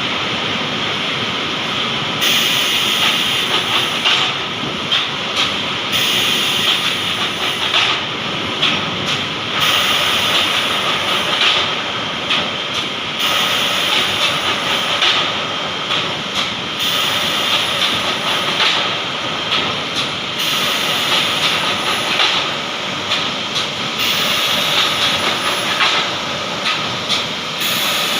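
MDF board processing line running: steady machinery noise with a loud hiss that comes on for about two seconds and drops away, repeating roughly every three and a half seconds.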